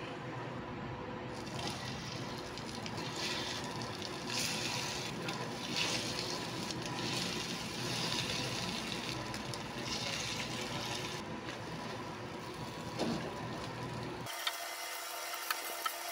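Food sizzling in a nonstick frying pan over a gas burner: butter, then buttered pandesal and egg frying, as a steady hiss. A few light clicks near the end.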